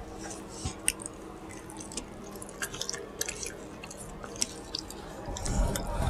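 A person chewing a mouthful of soft burrito with wet, smacking mouth clicks. Near the end there is a louder bite into the flour-tortilla burrito.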